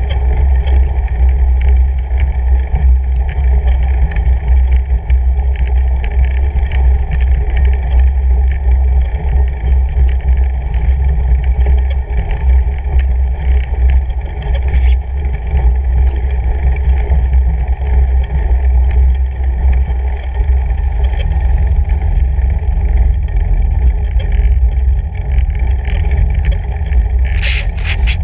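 Steady low rumble of a fat bike rolling uphill over a snow-covered gravel trail, with tyre and riding noise. About a second before the end, a quick series of sharp clicks and knocks as the bike enters a culvert tunnel.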